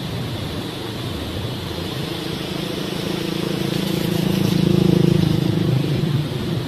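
Motor vehicle engine hum that swells to a peak about two-thirds of the way through and then fades, over a steady rushing rumble.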